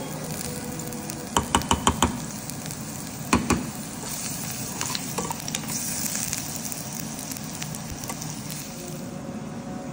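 Chopped garlic and a dried red chilli sizzling steadily in hot oil. A metal spoon knocks sharply against the pan five times in quick succession about a second and a half in, and twice more a second or so later.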